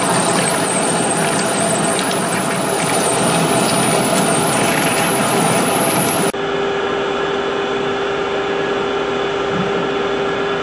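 Lathe trepanning Inconel 718 with flood coolant: a steady, harsh cutting noise as the carbide tool ploughs a deep ring groove, its chips struggling to clear through straight scrap channels that are too small. About six seconds in it cuts abruptly to a steadier machine hum with a steady tone.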